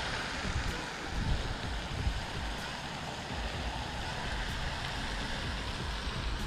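Wind buffeting the microphone: an uneven low rumble over a steady outdoor hiss.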